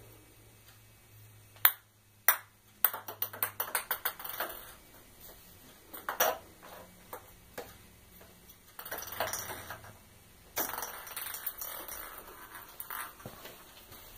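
A small hard ball bouncing on a tile floor: two sharp strikes about two seconds in, then a quick run of bounces that grow fainter. Later come softer stretches of scuffing.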